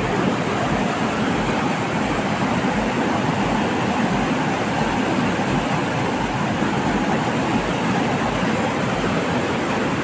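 Fast-flowing mountain river rushing over stones: a steady, unbroken rush of water.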